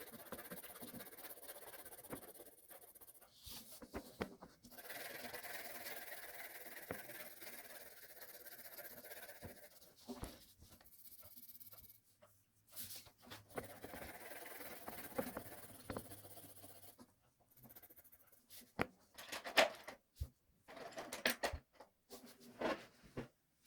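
Coloured pencil scratching on paper in stretches of a few seconds, with short pauses and small taps between strokes, as an area of a drawing is shaded in.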